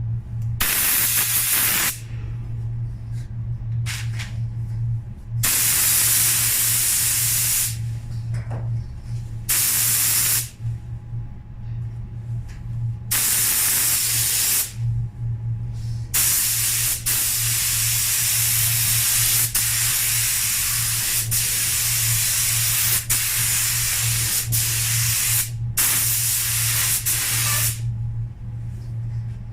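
Compressed-air paint spray gun hissing in repeated passes, short bursts of a second or two and one long spray of about ten seconds, over a steady low hum.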